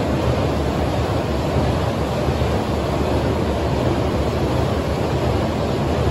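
Diesel engine of a backhoe loader running steadily, a loud, even, low-pitched noise with no distinct knocks.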